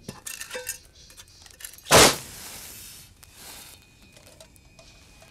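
A single loud, sudden hit about two seconds in, fading over about a second, preceded by faint clinks and rustles.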